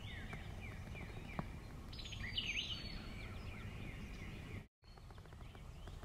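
Wild birds calling: a run of short, downward-sliding chirps, with a busier cluster of calls about two seconds in, over a faint low background rumble. The sound cuts out for a moment near the end.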